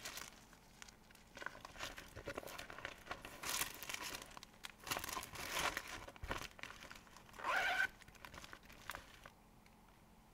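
Irregular crinkling and rustling of packaging and fabric as cross-stitch supplies are handled and put away, stopping about nine seconds in.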